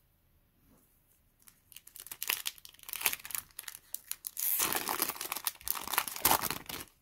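Foil Yu-Gi-Oh! booster pack wrapper crinkling as it is handled and torn open. It starts about a second and a half in and grows denser and louder near the end.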